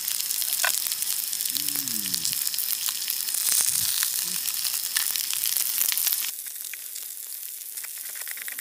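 Food frying in a hot pan: a steady sizzle with fine crackling pops. About six seconds in it drops to a softer sizzle.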